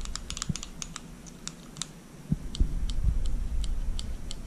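Small metallic clicks from the thumb safety and other moving parts of a stripped 1911 pistol frame being worked back and forth by hand to spread fresh gun oil through the action. The clicks come irregularly, several a second, thinning out briefly in the middle.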